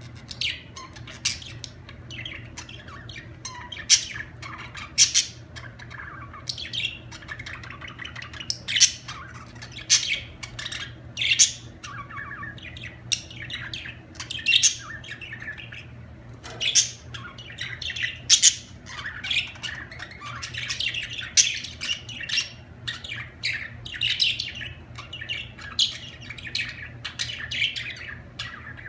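Budgerigars chattering, a dense run of sharp chirps and squawks, over a faint steady low hum.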